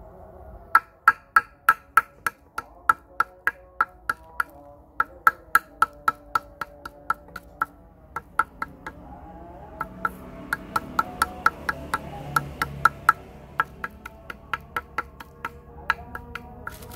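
Stone pestle pounding orange pain-relief tablets on a plastic sheet over a hard floor, crushing them to powder: a long run of sharp knocks about three a second, with a couple of short pauses.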